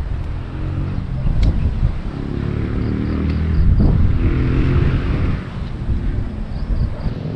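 A motor vehicle passing: its engine grows louder to a peak about four seconds in, then fades away.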